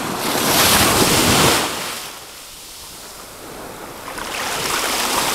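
Small sea waves washing in at the shoreline, a rush that swells for the first second or so, ebbs away, then builds again near the end, with some wind buffeting the microphone.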